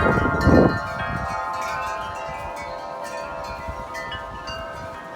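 Tubular metal wind chimes ringing hard in gusty wind, many overlapping tones at once. A gust rumbles on the microphone in the first second, then the chimes ring on and slowly die down.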